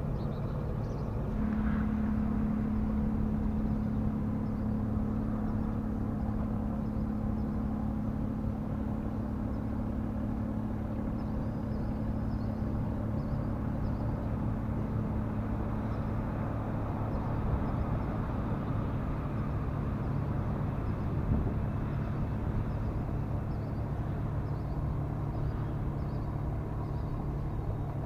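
Steady low engine hum over a constant rumble, with a higher tone joining about a second and a half in; faint high chirps sit above it.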